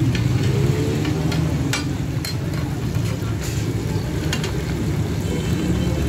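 Whole fish sizzling in shallow oil on a large flat steel griddle, with sharp clicks of metal spatulas tapping and scraping the pan about every half second to second. A steady low rumble runs underneath.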